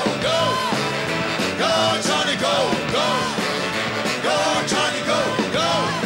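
Live rock and roll band playing at full volume, with a male singer singing loudly over the guitars and drums.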